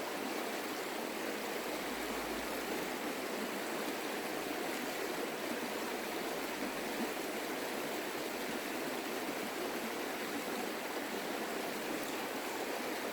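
A creek's water running steadily, a constant rush with no breaks.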